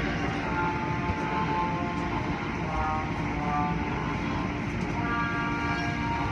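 Automatic car wash heard from inside the car: water spray and rotating cloth brushes beating against the body and windows, a steady dense rumble, with a few faint held tones over it.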